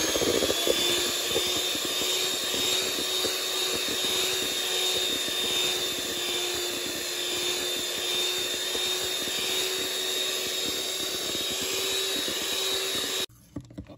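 Electric hand mixer running at a steady speed, its beaters whipping cream and condensed milk in a metal bowl, with a steady motor whine. It switches off suddenly near the end.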